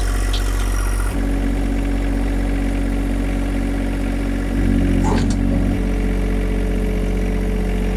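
John Deere 1025R compact tractor's three-cylinder diesel engine running steadily while the loader is worked to unhook the bucket. The engine note steps up for about a second around halfway through, with a short metallic clank about five seconds in.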